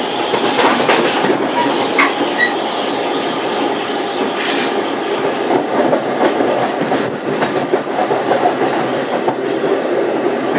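Inside a moving passenger coach of an electric-hauled commuter train: the steady running noise of wheels on the rails, with a few sharp clicks from rail joints and track work.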